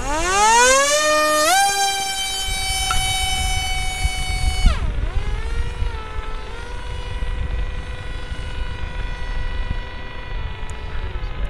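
Electric motor and propeller of an S800 Sky Shadow FPV flying wing spinning up for an autolaunch. The whine rises steeply, holds a high pitch, then drops about five seconds in to a lower steady whine as the wing flies on.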